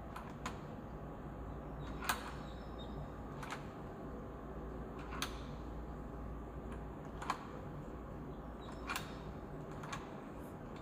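A newly installed door deadbolt being worked by hand, its bolt and latch giving short, sharp metallic clicks, about six spread over ten seconds, over a faint steady hum.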